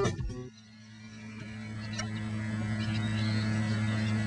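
Acoustic guitar music that cuts off right at the start, then a steady low electrical hum, like mains hum on the recording, slowly growing louder.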